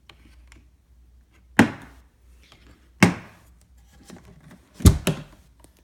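A package being opened and handled: four sharp knocks, the last two close together, with faint rustling and small clicks between them.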